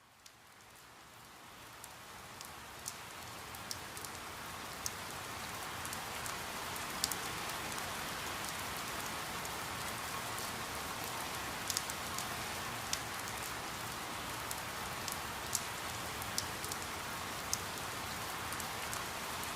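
Recorded rain falling steadily, fading in from silence over the first few seconds, with scattered sharper drips and taps.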